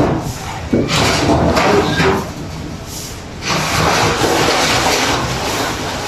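Water splashing in a swimming pool as a man jumps in, with a sudden splash about a second in, then steady splashing from his swimming strokes from about halfway on.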